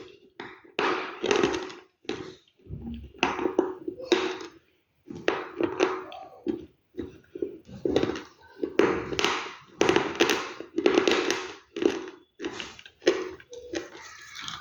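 Close-up chewing of crunchy food, one loud crunch after another in an uneven rhythm of about one or two a second, with brief pauses between.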